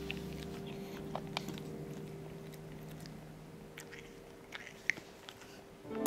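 A cat eating canned food from a foil tray: soft chewing with a few sharp clicks of teeth. Background music with long held notes fades through the first part, and a new chord comes in near the end.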